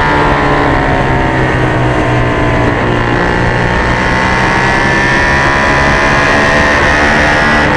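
Suzuki SV650 V-twin race engine running at high revs on track, its pitch rising steadily as the bike accelerates, with a brief dip a little under three seconds in.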